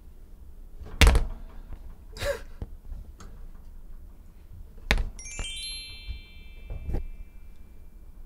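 Three dull thumps on a wire pet cage, the loudest about a second in, with a short rustle between. Near the middle, a run of bell-like chime notes steps down from high to low, each note ringing on.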